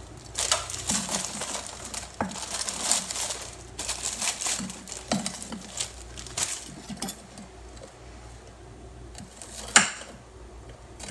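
Frozen cauliflower florets tipped from a plastic bag onto a cutting board: a run of light knocks and bag rustling for several seconds, then quieter handling. One sharp knock sounds near the end.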